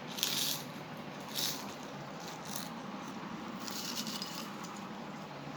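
Mouth noises while eating sour chips: four short hissy bursts, the longest near the end.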